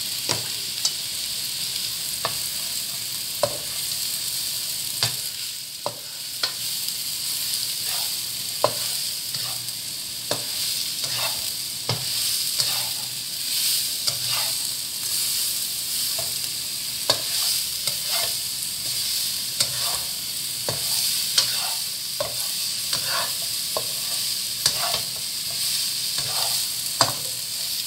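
Enoki mushrooms and garlic sizzling steadily in hot oil in a non-stick wok, stir-fried with a plastic spatula that scrapes and taps against the pan at irregular moments.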